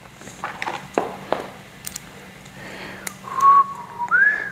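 A few light clicks and knocks from a plastic cover and screws being handled, then a person whistling: one held note, then a note that slides up and holds higher.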